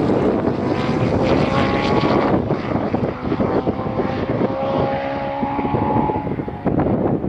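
Suzuki Hayabusa inline-four motorcycle engine in a small sports-prototype race car, running hard at high revs as the car accelerates away. Its note climbs, breaks briefly about two and a half seconds in, then climbs again.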